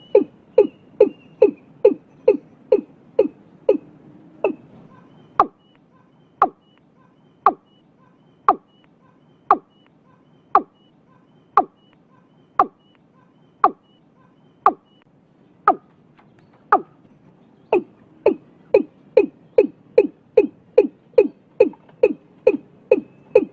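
Watercock (cúm núm) calling: a long series of short, deep, clucking notes, each dropping in pitch. They come about two a second, slow to about one a second a few seconds in, then quicken again to about two a second for the last few seconds.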